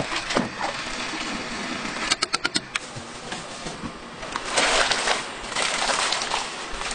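A gas range's burner igniter clicks rapidly, about five clicks in half a second, as the burner is lit. Later, rice cakes pour into a pot of boiling water with a splashing wash of noise.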